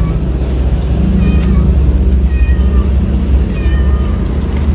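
Short, high-pitched cat meows, repeated many times, over a steady low rumble.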